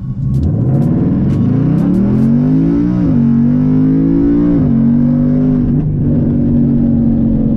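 Ford Mustang GT's 5.0 Coyote V8 launched at full throttle from a standstill for a 0-60 run. It climbs in pitch, and the 10-speed automatic upshifts with sharp drops about 3 s, 4.7 s and 5.8 s in, then the engine holds a steady pitch.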